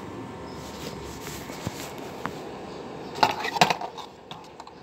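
Small hard clicks and clatter of a screwdriver and blender parts being worked on by hand, with a quick cluster of sharp knocks a little past three seconds in.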